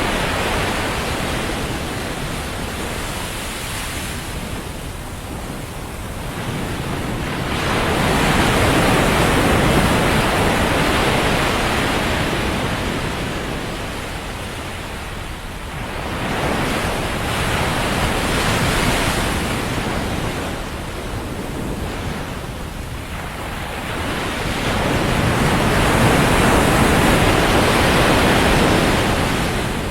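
Ocean surf on a sandy beach: waves breaking and rushing up the shore, swelling loud three times, roughly every eight to ten seconds, with a steady hiss of water between.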